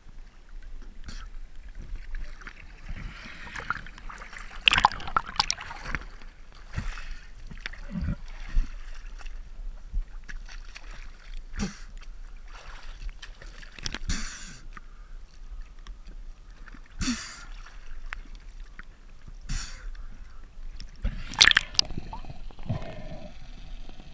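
Seawater sloshing and splashing against a waterproof camera at the surface, with irregular splashes; the loudest come about five seconds in and again near the end.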